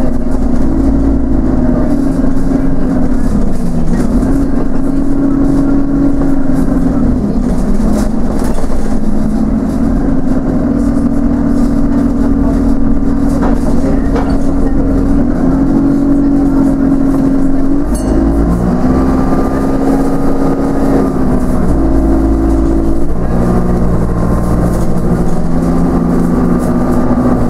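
Inside a Dennis Enviro 200 single-deck bus on the move: the diesel engine and drivetrain run with a low rumble and a strong whine that falls and rises as the bus slows and speeds up, stepping in pitch a few times in the second half.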